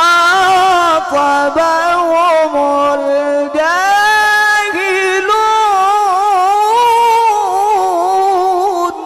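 A man reciting the Quran in the melodic tajweed style, amplified through a microphone: long held notes that waver and turn in pitch. About three and a half seconds in he breaks briefly and begins a new phrase that climbs higher, and the voice falls away near the end.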